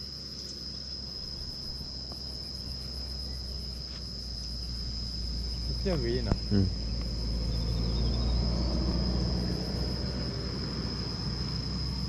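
A steady, high-pitched insect chorus: one shrill, unbroken tone with an evenly pulsing chirr above it. A low rumble swells underneath through the middle, and a brief voice is heard about six seconds in.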